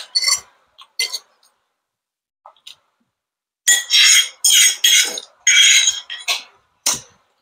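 Metal fork clinking and scraping against a plate: a few clicks at first, then after a pause a run of loud scrapes lasting about two seconds, and two more clicks near the end.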